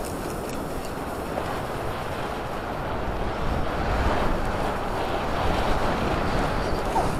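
Wind rushing over the microphone of a helmet camera as the skier moves through powder snow, a steady noisy rush that grows louder about halfway through.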